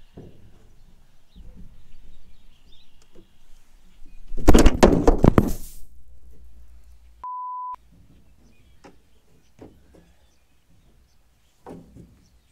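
A GoPro camera falling, clattering against the metal seed trailer and landing in the rice seed: a loud jumble of knocks lasting about a second. A couple of seconds later a short steady censor beep covers a swear word, followed by a few light knocks.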